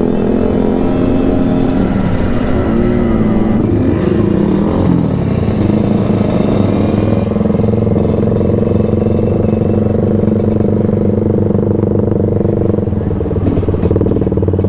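Yamaha RX-King's 135 cc two-stroke single-cylinder engine running under way. A few seconds in, its pitch wavers up and down, then it holds steady.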